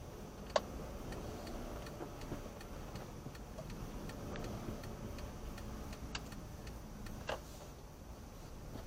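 A car's turn indicator ticking steadily inside the cabin during a slow turn, over a low engine and road rumble. A sharp click comes about half a second in, and two more follow later.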